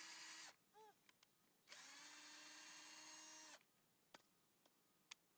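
Cordless drill boring screw holes into a wooden AK buttstock, held freehand. The motor runs steadily and stops about half a second in, then runs again for about two seconds and stops, with a few light clicks in the pauses.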